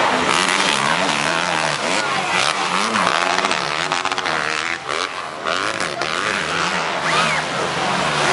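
Motocross bike engine revving up and down as it rides the dirt track, its pitch rising and falling repeatedly.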